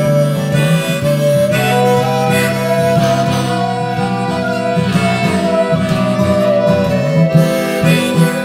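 Acoustic folk band playing an instrumental passage: a strummed acoustic guitar keeps a steady chord rhythm under a wavering lead melody on harmonica, with fiddle alongside.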